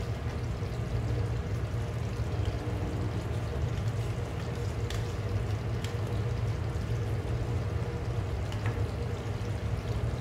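Steady low hum and hiss of a kitchen, with a few faint clicks as a spoon scrapes fresh cream out of a plastic tub onto gravy in a pan.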